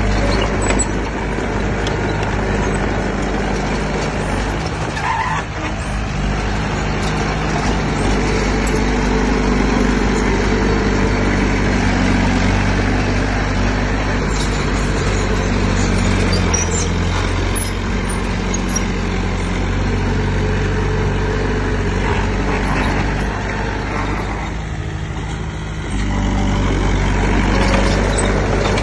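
Heavy diesel engine of earthmoving machinery running steadily, with a brief drop in level about 24 seconds in before it picks back up.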